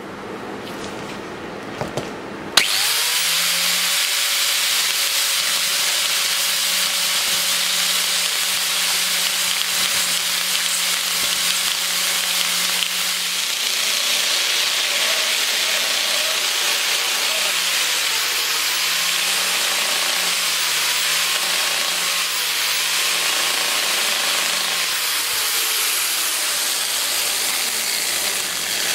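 Angle grinder driving a homemade belt-sander attachment starts up about two and a half seconds in, quickly reaches full speed and runs with a steady whine over the hiss of the sanding belt. Between about 17 and 24 s its pitch dips and recovers several times as the belt is pressed into the work and the motor slows under load.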